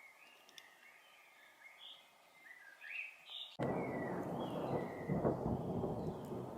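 A bird calling in short chirps, then about halfway through a sudden crack of thunder that rolls on as a long rumble, louder than the bird.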